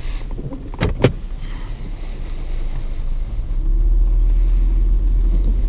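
Mercedes-Benz E320 (W211) pulling away on a wet road, heard from inside the cabin: the low engine and tyre noise grows louder over the first few seconds and then holds steady. Two sharp clicks about a second in.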